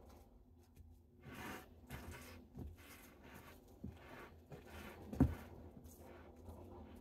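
Wooden spoon stirring thick cookie dough in a glass mixing bowl: repeated soft scraping strokes with a few dull knocks of the spoon against the bowl, the loudest about five seconds in.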